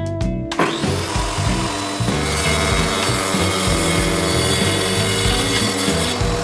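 A power tool working wood, starting about half a second in and running steadily, over background guitar music.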